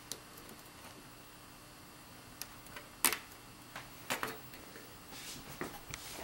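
Scattered clicks and short rustles of hands working cables and a plastic tie wrap against a computer case panel, the loudest clicks about three and four seconds in.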